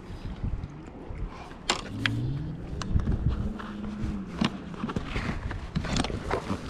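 Wind buffeting the microphone over water lapping around a wading angler, with sharp knocks and clicks from handling the fly rod. About two seconds in, a low hum rises in pitch, holds steady for a couple of seconds, then drops away.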